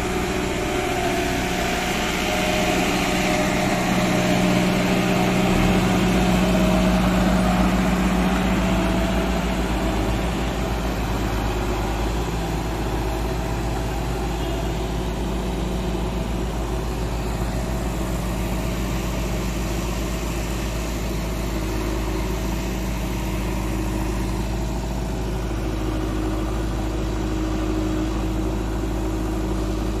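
Diesel engine of a JCB motor grader running steadily for the first few seconds, then, after a change about five seconds in, the diesel engine of a JCB backhoe loader idling steadily.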